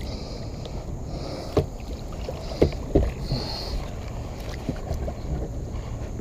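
A kayak being paddled through shallow water, with a steady low rumble and a few hard knocks, loudest a pair about two and a half and three seconds in, as the kayak strikes something underwater.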